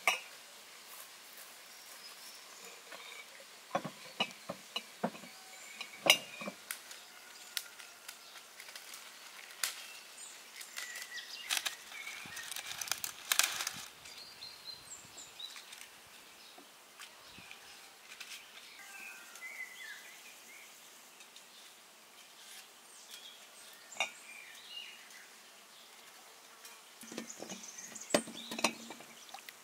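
Scattered light clicks and knocks over quiet outdoor background noise, busiest around the middle and again near the end.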